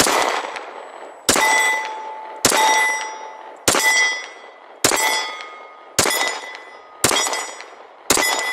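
Glock 23 .40 S&W pistol fired slow and steady, about eight shots roughly a second apart. Each shot is followed by a ringing tone that dies away within about a second.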